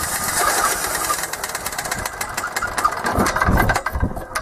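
Kipor 186F single-cylinder air-cooled diesel engine firing unevenly, still bleeding air out of its fuel system. Its knocks come fast at first, then slow and die away near the end.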